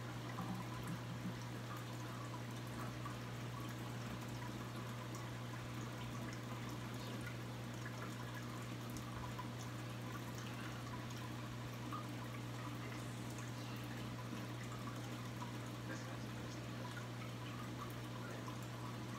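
Reef aquarium's circulation running: water trickling and pouring steadily over a constant low hum.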